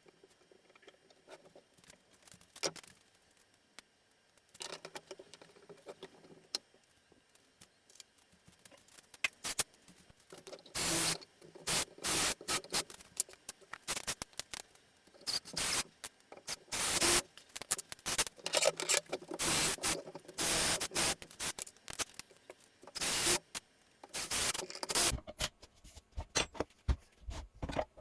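Irregular bursts of scraping and rubbing from hand work on a workpiece, sparse at first and coming thick and fast from about a third of the way in, with a few sharp knocks.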